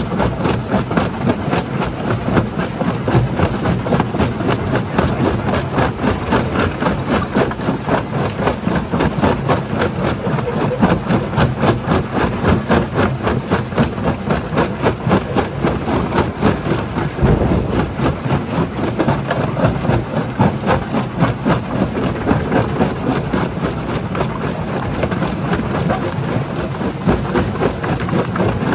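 Primary jaw crusher running under load: a steady machine drone with a dense, continuous clatter of rock being broken and knocking through the crusher.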